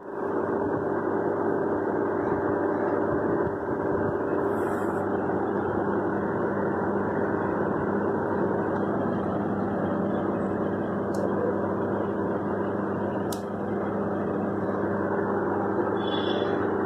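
A steady hum and rushing noise with a low drone, with a couple of faint ticks.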